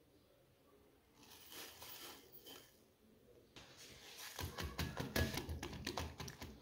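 Brown sugar tipped from a spoon into frothy egg whites with a soft hiss. Then, about four seconds in, a silicone whisk starts beating the mixture in a glass bowl with a fast, uneven run of clicks.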